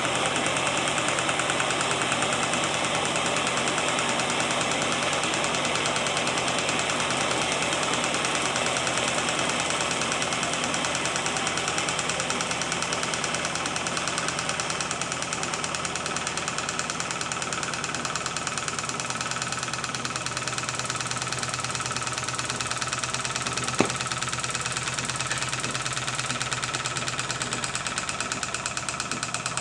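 Small gamma-type Stirling engine with a Ross yoke linkage running steadily, its moving parts making a fast, even mechanical clatter. A single sharp click near the end.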